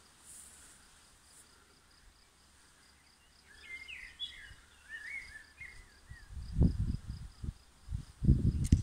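Garden ambience: an insect chirping in a steady, even pulse of about four a second, with a bird's short warbling song in the middle. Low rumbling buffets on the microphone come twice near the end and are the loudest sound.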